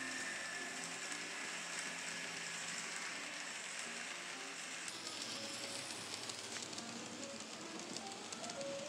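N scale model train running along the track: a steady hiss of small wheels and motor. Faint music notes sound under it and climb near the end.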